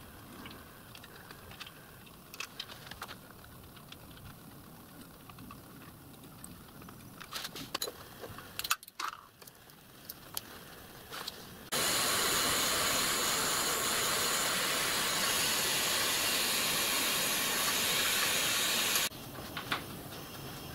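Small metal clicks and taps as a hex key and fittings are worked loose on a model locomotive boiler's backhead. About twelve seconds in, a loud, steady hiss starts suddenly and stops abruptly about seven seconds later.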